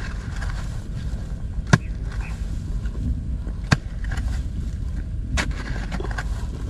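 Three sharp knocks about two seconds apart over a steady low rumble.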